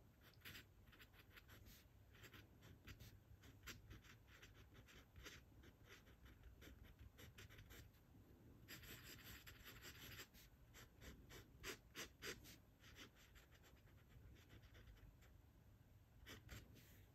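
Glass dip pen scratching faintly on notebook paper: many short strokes of handwriting, with a longer stretch of continuous scratching about halfway through.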